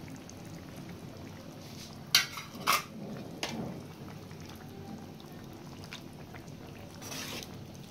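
A slotted metal spoon knocks sharply twice against a cooking pan a little over two seconds in, then once more softly, as paneer cubes are stirred into thick tomato gravy. A short scraping stir comes near the end, over a steady low simmer of the gravy.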